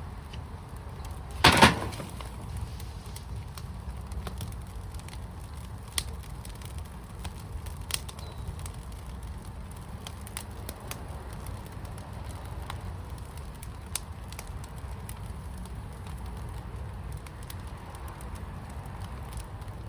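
Firepit fire burning, with scattered sharp crackles over a steady low rumble. One loud crackling burst comes about a second and a half in.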